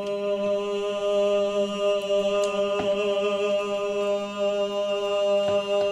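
Barbershop chorus singing one long sustained 'my' on a single steady pitch, the voices locked together into a stack of harmonics.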